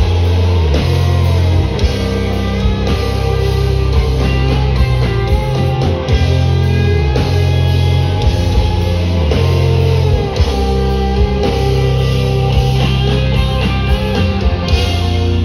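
Live rock band playing loudly: electric guitars over held bass notes that change every second or two, with drums keeping time throughout.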